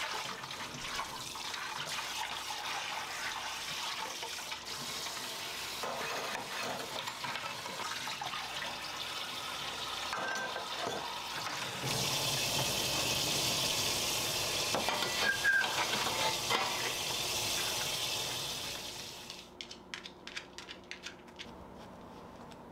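Kitchen faucet running into the sink while dishes are rinsed: a steady rush of water that grows louder about halfway through, then cuts off near the end, followed by a few light clicks.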